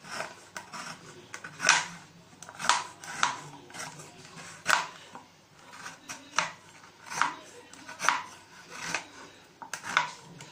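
A knife chopping a block of jaggery on a cutting board: sharp, uneven knocks of the blade about once a second, a dozen or so in all.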